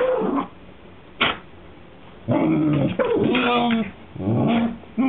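Dogs vocalizing in play: whines and grumbling growls while pestering each other to play. There is a short sharp yip about a second in, then a run of drawn-out, arching calls from about halfway on.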